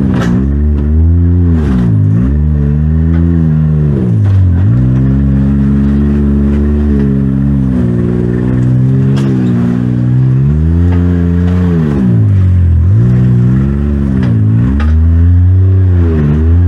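A side-by-side UTV engine revving up and dropping back again and again, about seven times, as it is worked hard over rough ground, with a few sharp knocks among the revs.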